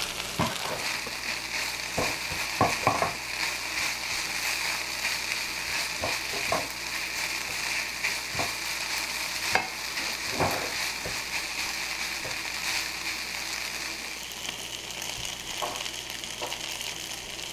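Kimchi fried rice sizzling steadily in a hot pan as it is stirred, with scattered clicks and scrapes of the utensil against the pan. The sizzle softens a little about two thirds of the way through.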